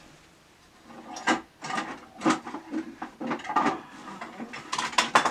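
Hard objects being rummaged through and knocked together: an irregular run of sharp clicks and clattering knocks, starting about a second in.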